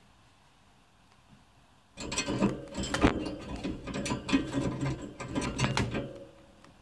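Budgerigar chattering: a rapid, scratchy run of clicks and short chirps that starts about two seconds in and stops a little after six seconds.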